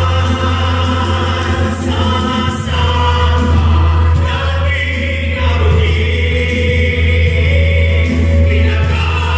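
Stage musical cast singing a choral number together over backing music with a strong, steady bass.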